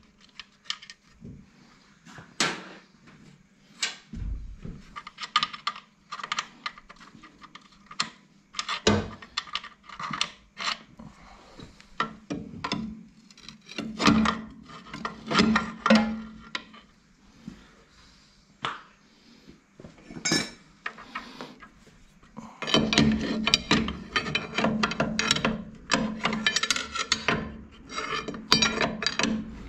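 Steel hand tools and loose gearbox parts clinking and knocking as a tractor gearbox is taken apart, in scattered single clinks with short pauses. About 23 seconds in, a denser run of rapid clicking and metal scraping begins and keeps going.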